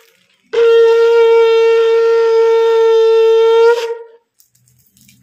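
A conch shell (shankh) blown in one long, steady blast of about three seconds. It starts about half a second in and ends with a brief upward bend in pitch. It is sounded to welcome the idol as it is carried into the house.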